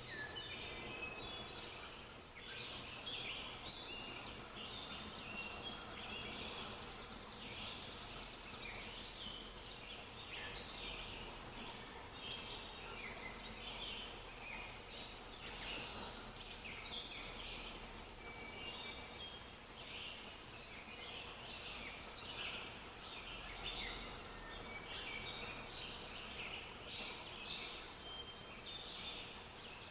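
A chorus of small birds chirping and singing, many short calls overlapping without a break.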